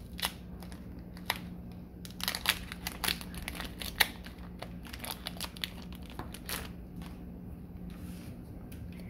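Foil Pokémon booster pack wrapper crinkling and crackling as it is torn open and the cards are pulled out, in irregular bursts that are densest a few seconds in, with one sharp snap near the middle.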